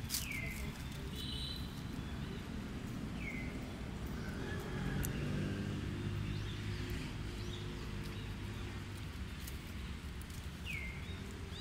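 Outdoor ambience: a steady low rumble, three short high calls that each drop in pitch, and a low hum that swells in the middle and fades again.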